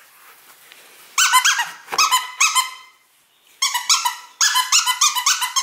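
Squeaker inside a plush dragon dog toy squeezed by hand over and over: two runs of quick, high squeaks, the first about a second in and the second near the end.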